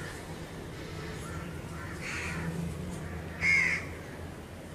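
Crow cawing: a weaker call about two seconds in and a louder, harsher one about three and a half seconds in, over a faint steady low hum.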